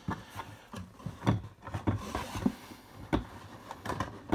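Hands handling a cardboard trading-card hobby box: scattered rustles, scrapes and light taps of cardboard.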